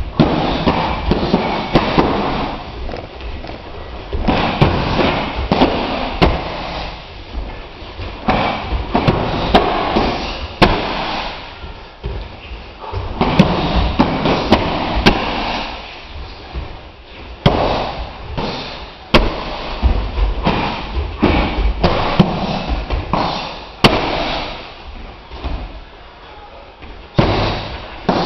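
Kicks and punches landing on a handheld kick shield: sharp slaps and thuds at irregular intervals, often several in quick succession, over a steady room din.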